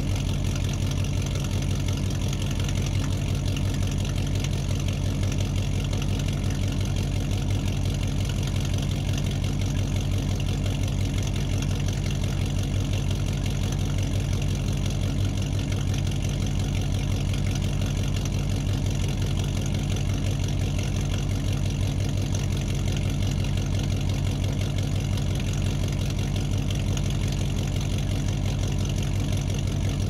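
Muscle car engine idling steadily in a large room, a rapid, even low pulsing of firing strokes that never revs up or down.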